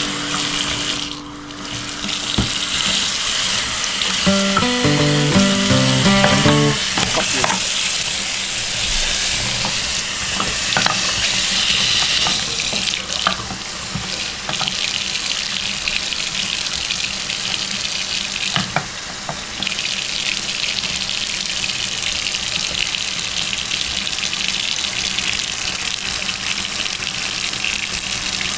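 A steady, loud rushing hiss, like running water, with a few musical notes about four to seven seconds in and a few faint clicks later on.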